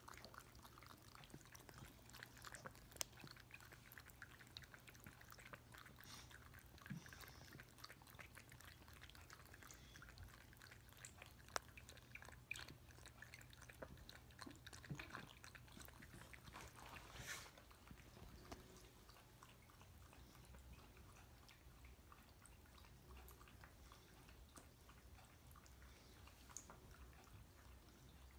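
Faint lapping of a domestic cat drinking water from a drinking glass: many soft, quick, irregular wet clicks of the tongue in the water, over a low steady hum.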